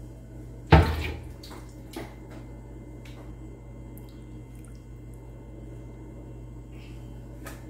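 Broth being ladled into a serving bowl, with a sharp clank of the ladle against the pot or bowl about a second in and a lighter knock a second later. A low steady hum runs underneath.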